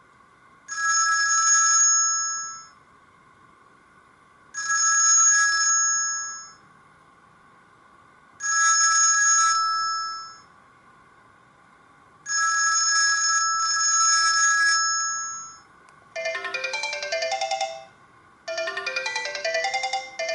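Sony Ericsson K200i mobile phone ringtones. A ring tone of steady held notes sounds in four bursts about four seconds apart, the last one longer. About sixteen seconds in, a different ringtone starts, a quick melody of short notes.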